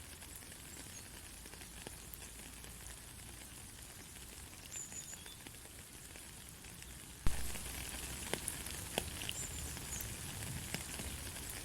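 Light, steady rain hissing, with scattered drops tapping. About seven seconds in there is one sharp tap, and after it the rain is a little louder.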